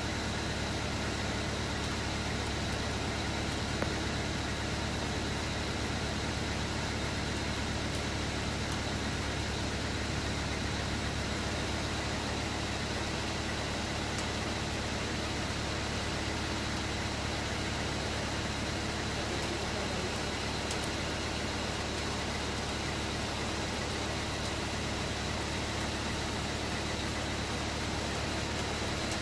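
Off-road 4x4's turbo engine idling steadily with the vehicle standing still.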